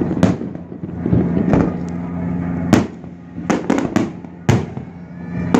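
Fireworks bursting overhead: about eight sharp bangs at uneven spacing, with a quick run of four in the middle.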